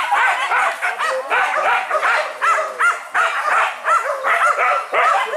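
Several hunting dogs yelping and barking excitedly, with short high calls overlapping several times a second.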